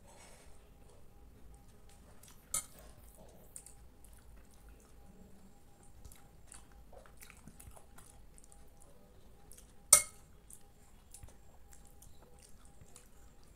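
A metal spoon clinks against a glass bowl twice, about two and a half seconds in and again, louder, about ten seconds in. Between the clinks there are faint, soft eating sounds from mouthfuls of rice pudding.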